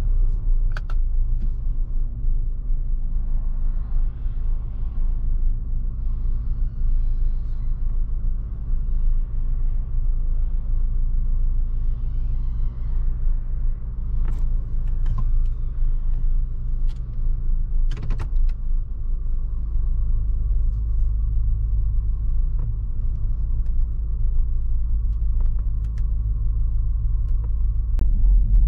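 RV driving at a steady speed: a continuous low engine and road rumble. A few sharp clicks or rattles cut through it, the loudest about 18 seconds in.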